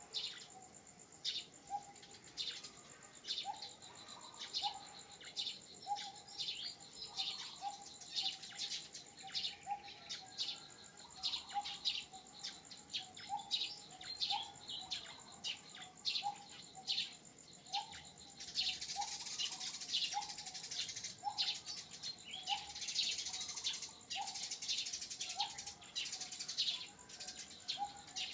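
Outdoor bird chorus: many short, high chirps and tweets, with a lower note repeated about once a second. Under it runs a steady, thin, high insect whine, and about two-thirds of the way through a denser insect buzz swells up for several seconds.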